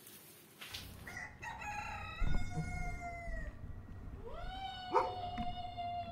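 A rooster crowing twice: each crow rises at the start and then holds a long drawn-out note, the first about a second in and the second about four seconds in.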